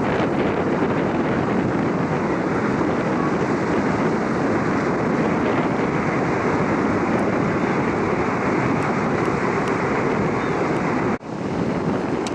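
A large car ferry passing close as it leaves port: a steady rush of churned water and engine noise, mixed with wind on the microphone. The sound breaks off for an instant about eleven seconds in, then carries on.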